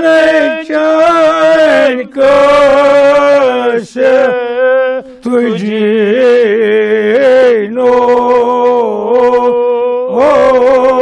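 A man chanting a Kashmiri marsiya, an elegy for Imam Hussain, unaccompanied. He sings in long, drawn-out notes that waver and bend, phrase after phrase with short breaths between.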